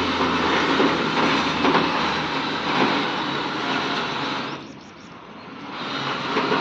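Truck engine running with a loud, steady hiss. It drops away about four and a half seconds in, then comes back up near the end.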